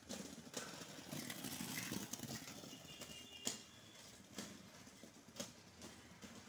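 Skates rolling over a hard surface, with a sharp clack about once a second as the skater strides. The rolling is louder in the first three seconds and then quieter.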